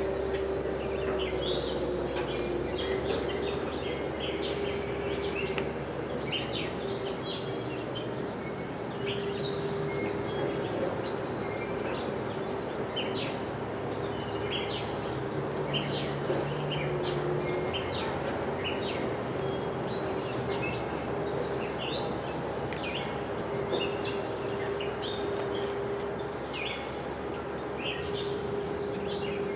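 Many short bird chirps throughout, over a steady low hum and outdoor background noise.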